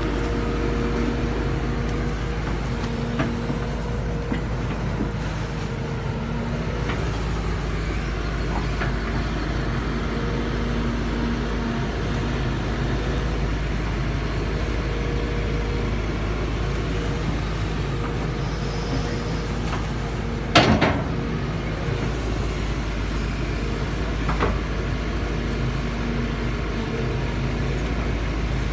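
Kobelco SK-series hydraulic crawler excavator running steadily with a constant engine hum while it digs and moves wet mud. One sharp knock about three-quarters of the way through, and a smaller tick a few seconds later.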